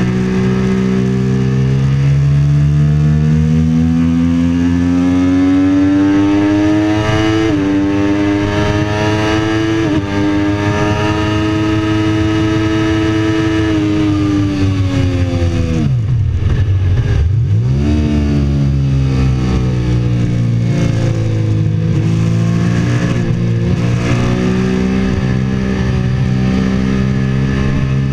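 Sport motorcycle engine at full throttle on track, revs climbing through the gears with quick upshifts about a third of the way in. Past the middle the revs fall steeply as it slows for a corner, then rise again as it accelerates out, with wind rushing over the fairing.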